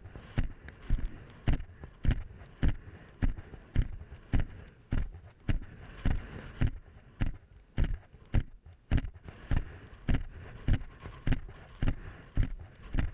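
Helmet-mounted GoPro camera knocking and rattling against a smooth riding helmet with each stride of a cantering horse, together with its hoofbeats, about two knocks a second in an even rhythm.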